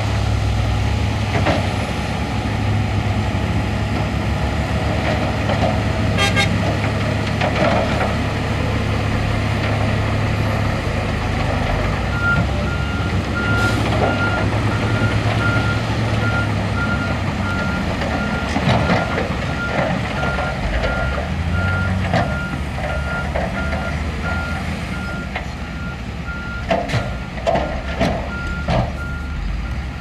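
Heavy diesel engines of dump trucks and a SHANTUI bulldozer running steadily. From about twelve seconds in, a truck's reversing beeper sounds at an even pace as the truck backs up. A few knocks and clanks come near the end.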